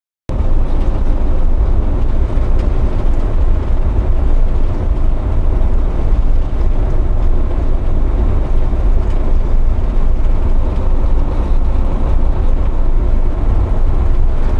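In-cab noise of a Volvo 730 semi tractor cruising at highway speed: a steady, deep drone from its D13 diesel engine and drivetrain, mixed with road and wind noise. It cuts in suddenly just after the start.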